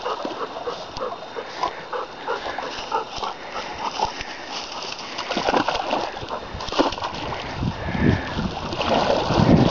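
A dog swimming with water splashing around it as it paddles, with a quick run of short dog sounds, about two or three a second, through the first few seconds. Louder splashing and sloshing builds near the end as it reaches the shallows and wades out.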